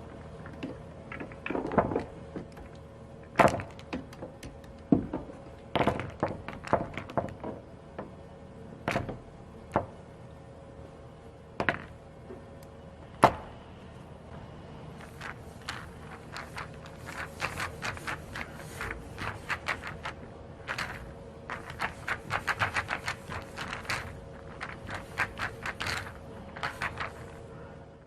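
Billiard balls clacking in a billiards hall over a steady low hum. There are single sharp knocks every second or two at first, then from about halfway a quick, dense clatter of many clicks.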